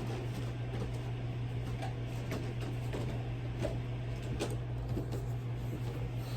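A steady low hum with a few faint clicks and knocks scattered through it.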